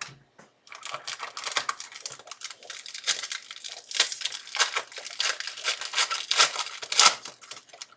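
Plastic wrapper of a trading-card pack crinkling and tearing as it is opened by hand, with dense crackling from about a second in until near the end.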